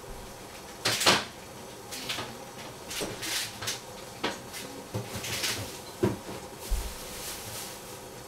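A run of irregular knocks and clunks of household handling, the loudest a sharp double knock about a second in and a low thud near the end.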